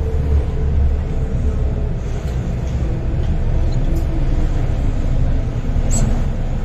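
Inside an MTR Island Line M-Train, a Metro Cammell electric multiple unit, running into the Heng Fa Chuen terminus platform: steady low rumble of wheels on rail and running gear as it slows to stop, with a short high squeak about six seconds in.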